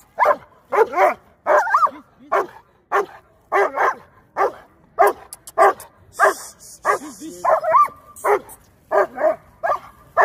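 German shepherd barking over and over, about two sharp barks a second, some with a yelping rise and fall in pitch.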